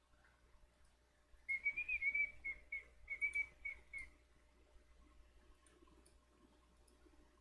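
A short run of about ten whistled notes, close together in pitch and slightly wavering, lasting a little over two seconds and starting about a second and a half in, over faint room tone.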